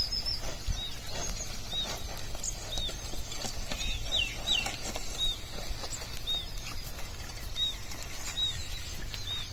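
A small bird calling over and over with short, arched chirps, about one a second, with a quicker run of calls around the middle, over a steady low rumbling noise.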